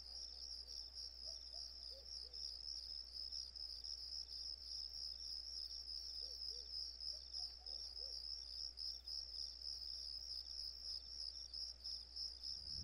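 Faint crickets trilling steadily in a rapid, high pulsing, with a few soft low chirps in the background.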